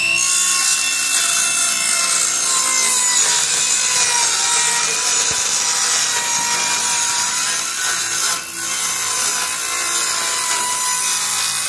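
Circular saw ripping through 3/8-inch plywood along a clamped straight-edge guide. The motor whines steadily under load, dips briefly partway through, and cuts off suddenly at the end.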